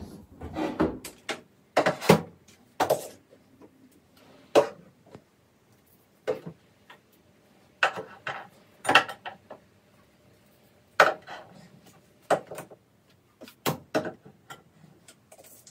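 Toiletry bottles and jars being set down and shuffled on the shelves of a bathroom cabinet: a dozen or so separate clacks and knocks at irregular intervals, with short quiet gaps between them.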